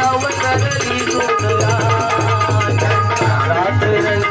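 Live bhajan music in lavani style: a dholki drum plays a steady, busy beat under a sustained melody line.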